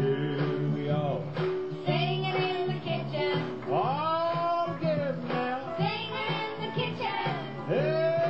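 Country song: a man and children singing together over plucked guitar accompaniment.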